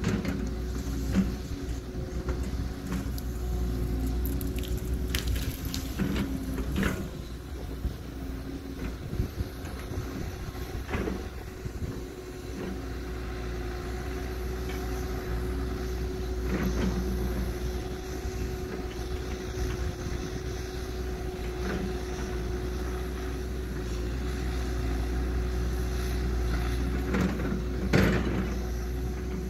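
Cat 314 excavator working as it clears trees: its diesel engine runs with a steady hum and a steady tone, broken by several sharp cracks and snaps of wood as trees and branches are pushed over and torn out, the loudest near the end.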